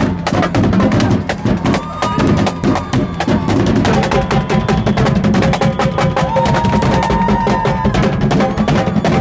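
Drumline playing a rapid, busy beat on a marching bass drum and snare drums, with crowd voices underneath.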